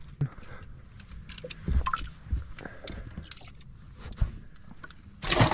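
Handling at a bass boat's livewell hatch: scattered clicks and a few dull knocks of the latch and lid on the deck. A short, loud, noisy burst comes near the end.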